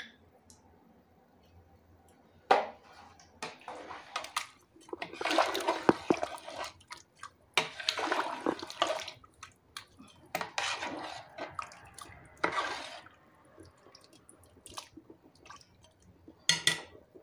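Rice and chicken in a pot of cooking water being stirred: several sloshing strokes of a second or two each, with light knocks of the spoon against the pot.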